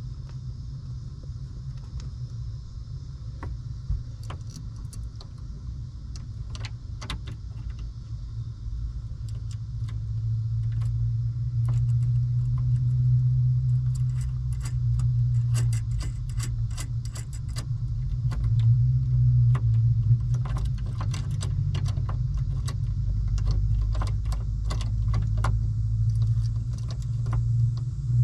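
Small metal hardware clinking and ticking as it is handled, a run of short sharp clicks that grows busier in the second half, over a steady low hum.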